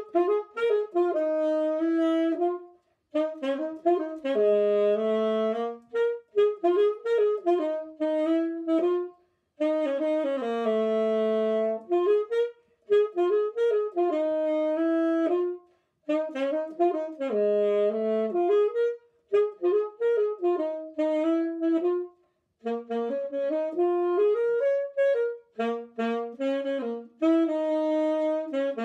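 Alto saxophone played solo and unaccompanied: a simple melody in short phrases of a few seconds each, with brief pauses for breath between them.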